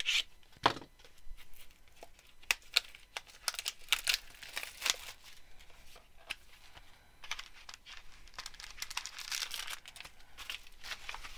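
Foil wrapper of a baseball card pack torn open and crinkled by hand: irregular crackles and rustles, with a longer stretch of steady rustling late on.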